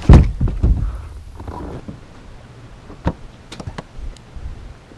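Thumps and knocks of a bass boat's deck hatch lid, the livewell cover, being handled as a fish is put in, loudest just after the start. A few sharp clicks follow about three seconds in.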